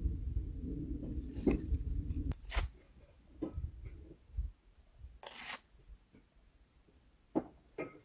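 Campfire kindling being handled: a few short tearing and crunching sounds spaced a second or more apart, the longest about five seconds in. A low rumble stops about two and a half seconds in.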